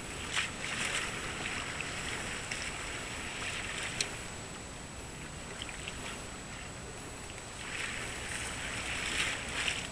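Harbour water lapping gently, a soft rushing that swells near the start and again near the end, with a few sharp little clicks.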